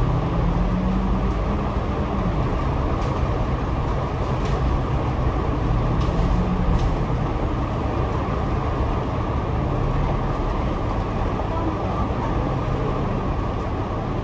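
Double-decker bus running, heard from the upper deck: a steady engine and road rumble, with the engine note rising and falling twice.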